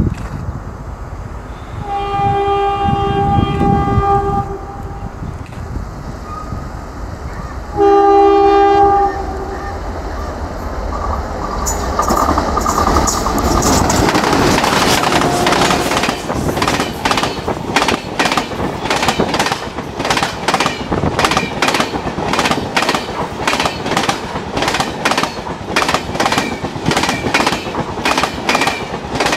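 Twin WDM3D ALCO diesel locomotives sounding their horn twice: a longer blast about two seconds in, and a shorter, louder one about eight seconds in. The locomotive engines then swell and pass at high speed from about twelve to sixteen seconds in, followed by the coaches' wheels clattering rhythmically over the track.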